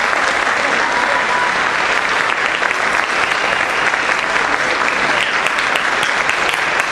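Audience applauding steadily at the end of a choir's song.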